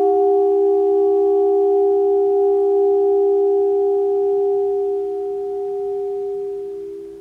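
Saxophone and live electronics holding a soft chord of nearly pure tones: two close notes about a step apart, with a quieter note an octave above, steady for several seconds and fading out near the end.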